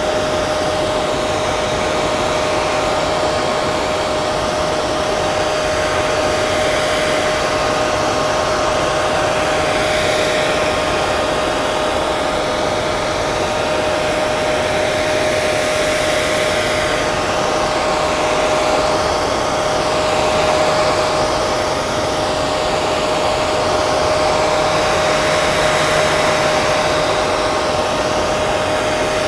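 Hair dryer running continuously: a steady rush of blown air with a constant motor whine.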